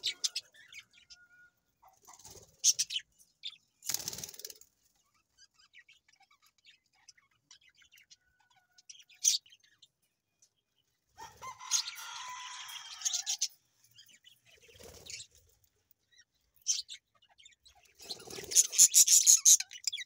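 Budgerigars at a nest box: scattered short high chirps and clicks, a scratchy two-second bout about halfway, and a busy flurry of wing flapping and chirping near the end.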